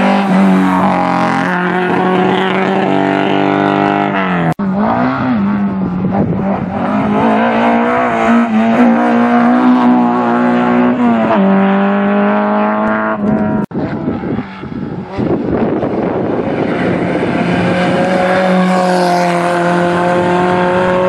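Classic rally cars passing one after another at full throttle, first a Lancia Fulvia coupé and then an Alfa Romeo Alfasud Sprint, their four-cylinder engines revving hard. Pitch climbs and drops back at gear changes, and the sound cuts abruptly from one car to the next about four and a half seconds in and again near fourteen seconds.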